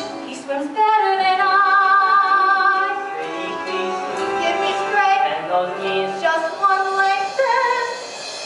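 A female voice singing a musical-theatre song over instrumental accompaniment, holding long notes with vibrato.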